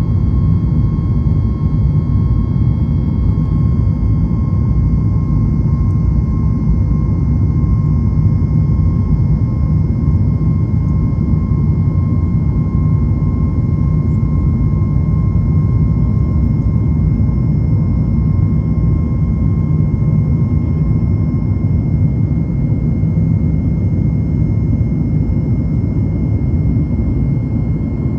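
Boeing 737 MAX 8 climbing after take-off, heard inside the cabin beside the wing: the CFM LEAP-1B turbofan's steady deep rumble with a thin steady whine over it.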